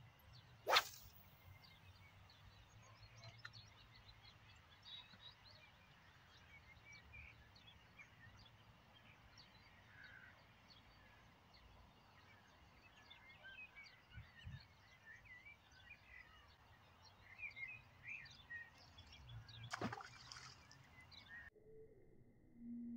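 Faint birdsong, scattered chirps and calls from several birds over quiet riverside ambience. A sharp click about a second in is the loudest sound, and a second click comes near the end.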